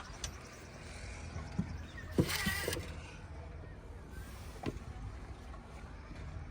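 Heavy diesel machinery at work, a backhoe loader and tractor running with a steady low rumble. A few sharp knocks and a short rattling burst about two seconds in.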